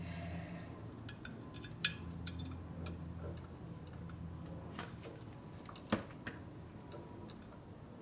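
Scattered small clicks and taps of a wire and hands knocking against the motorcycle's metal parts while the wire is fished down into place, with two sharper clicks about two and six seconds in. Under them a low steady hum stops about five seconds in.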